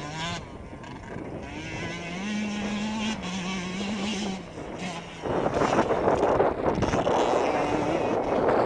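Yamaha YZ125 single-cylinder two-stroke motocross bike revving, its pitch rising and falling as it works through the gears. About five seconds in, a louder, rough rushing noise takes over.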